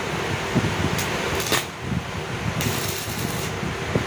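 Stick arc welding: the arc's steady crackle as a tack weld is laid on the steel chassis tubing, flaring louder briefly about one and a half seconds in and again for about a second past the middle.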